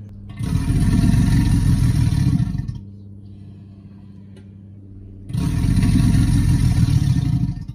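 American alligator bellow sound effect: two low, rough calls of about two seconds each, the first starting about half a second in and the second about five seconds in.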